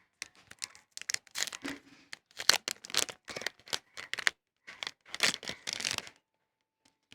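Packaging being handled and torn open by hand: a run of uneven rustling and tearing sounds, stopping about a second before the end.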